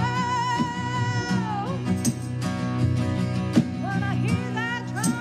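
Acoustic country-gospel band playing: a woman sings the lead in long held notes with vibrato over strummed acoustic guitars and electric bass.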